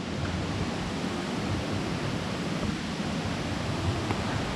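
Steady rushing of water from the Kuang Si waterfall cascades, an even, unbroken roar.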